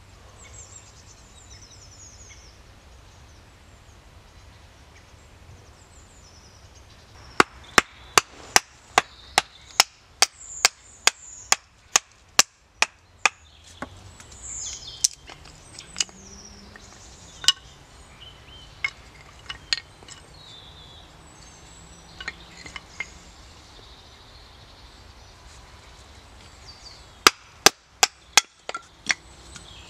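Batoning firewood: a baton knocking on the spine of a knife driven into a small log on a chopping stump, splitting it into kindling. Sharp wooden knocks come in a quick run of about two to three a second from about seven seconds in, then scattered single knocks, then another short run near the end.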